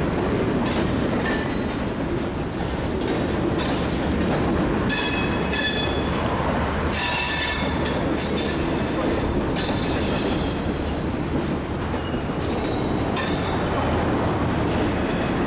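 Freight cars rolling past, their steel wheels rumbling steadily and clacking over the rail joints. Several short, high-pitched wheel squeals of metal on metal come through the middle.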